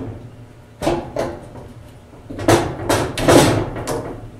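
Dryer drive motor being handled on the dryer's sheet-metal base while its wiring harness is unplugged: a run of sharp clunks and rattles, a couple about a second in and a cluster from about two and a half seconds on.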